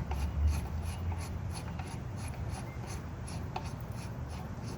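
The manual knob of a pump's capacity adjuster being turned by hand from 0% toward 100% to check that it moves freely. It gives a faint, even rubbing rasp about three or four times a second, with a low handling rumble in the first second.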